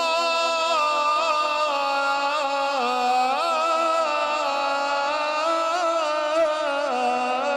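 Male Qur'an reciter (qari) chanting tilawat into a microphone, stretching a phrase into one long held line with ornamented turns of pitch and no pause for breath.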